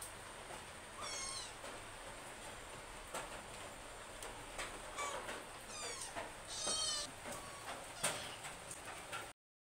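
A cat meowing several times, high-pitched, about a second in and again between five and seven seconds, over faint clicks. The sound cuts out to silence just before the end.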